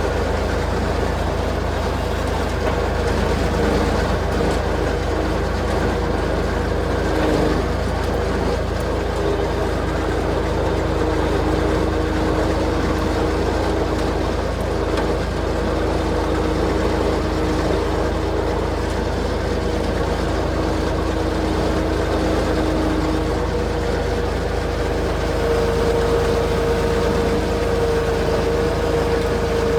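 Motor vehicle driving steadily: a constant low engine and road rumble with a steady hum over it.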